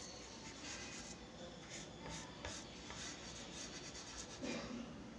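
Charcoal stick scratching across drawing paper in a run of short, irregular shading strokes, with one louder, lower scrape near the end.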